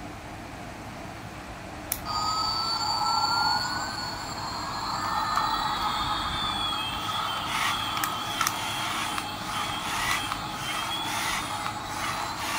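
Toy radio-control Airbus A380 switched on with a click about two seconds in, then playing its electronic jet-engine sound effect: a whine made of two tones, one slowly rising while the other slowly falls. Light clicks come in the second half as the plane is driven.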